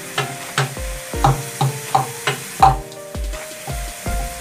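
Boiled potatoes being mashed with a metal hand masher in a steel bowl: rhythmic squelching thuds and clinks, about three strokes a second, with one harder stroke near the middle. Background music plays underneath.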